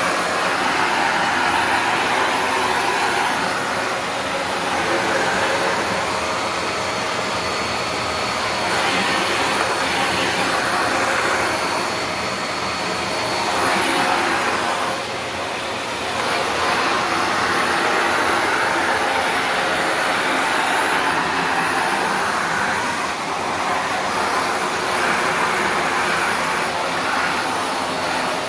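Shark NV355 upright vacuum cleaner running steadily with a continuous rush of suction airflow that swells and dips slightly every few seconds as it is moved.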